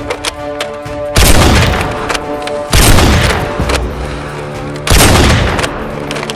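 Background music with three loud booms, about a second and a half apart, each dying away over about a second.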